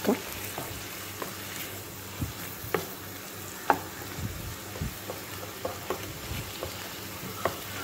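Wooden spatula stirring and scraping a spinach, onion and mushroom filling in a frying pan, the food sizzling steadily, with irregular knocks of the spatula against the pan.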